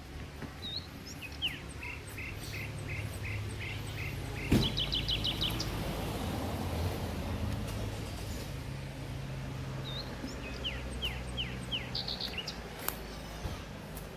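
Small birds calling over a steady low rush of waterfall noise: a run of short repeated chirps, a quick trill about four and a half seconds in, and more downslurred chirps near the end. A sharp knock at the start of the trill is the loudest sound.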